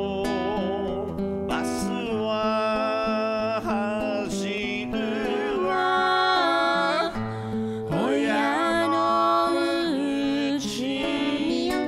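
A man singing a song into a close microphone, accompanied by acoustic guitar.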